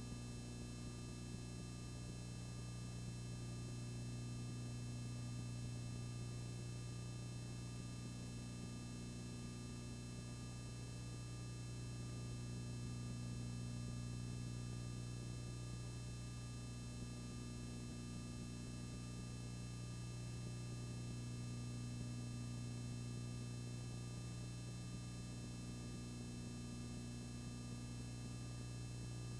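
Steady electrical mains hum with faint hiss, unchanging throughout.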